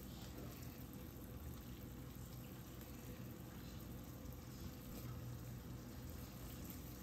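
Beef and red pepper stir-fry cooking in a skillet: a faint, steady sizzle.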